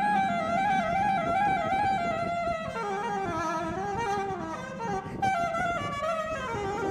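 Background music: a slow melody played by a single instrument, gliding up and down in pitch, over a soft low accompaniment.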